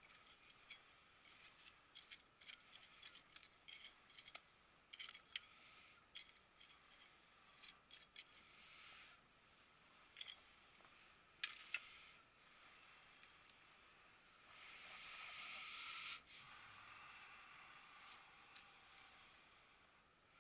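Faint clicks and short scrapes of a metal hand trowel working in gritty potting mix cut with decomposed-granite grit (masato), with a longer scraping rasp about three-quarters of the way through.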